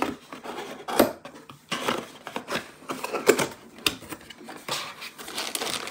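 A cardboard box and its paper contents being handled: irregular rustling with quick taps and knocks, with a sharper knock about a second in and another just past three seconds.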